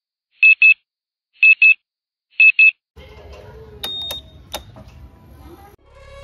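Loud pairs of short, high electronic beeps, three pairs about a second apart. Then a quieter stretch with a couple of sharp clicks and one short high beep as the Honda PCX scooter's smart-key ignition knob is pressed. Music begins just at the end.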